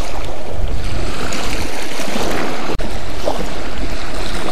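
Small waves lapping and washing over a rocky shoreline, with wind rumbling on the microphone. The sound cuts out for an instant a little under three seconds in.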